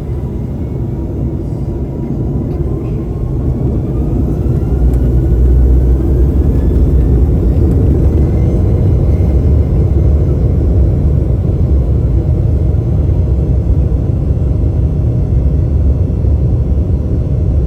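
Embraer 195 jet's GE CF34 turbofan engines spooling up to take-off thrust, heard from inside the cabin: a faint whine rising in pitch over the first several seconds while the deep rumble grows louder, then holds steady, with the rumble of the take-off roll.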